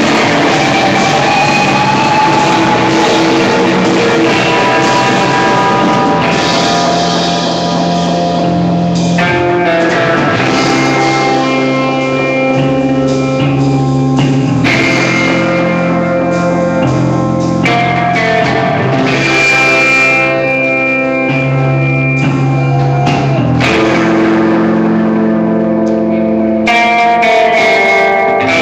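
Live rock band playing loud, with electric guitars holding chords that change every second or two over a drum kit, recorded on a phone's microphone.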